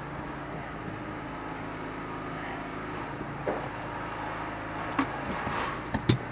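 Steady mechanical hum throughout. Near the end come a few sharp metallic clicks and knocks as a filter wrench is worked loose on a spin-on oil filter.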